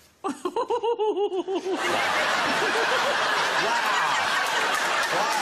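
A person laughs in a quick run of short bursts, then about two seconds in a studio audience breaks into loud, sustained laughter and applause.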